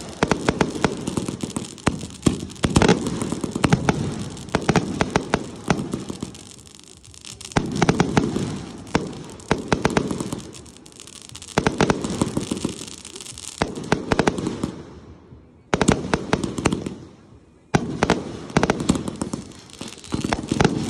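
Fireworks finale: rapid volleys of launches and bursts with dense crackling, coming in waves. There are short lulls about fifteen and seventeen seconds in.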